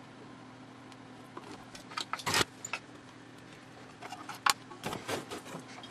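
Soldering iron tip scraping and tapping against a soldered metal tab on a metal enclosure while the solder is melted: a cluster of sharp metallic clicks and scrapes about two seconds in and another about four and a half seconds in, over a faint steady hum.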